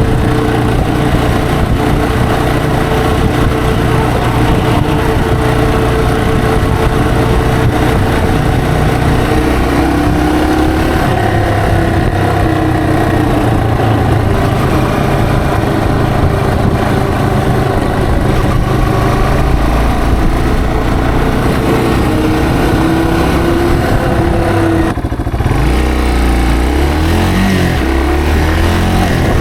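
Yamaha TW225's single-cylinder engine running while the bike rides along city streets, heard from the rider's position. The engine note holds fairly steady, dips briefly near the end, then picks up again at a lower pitch.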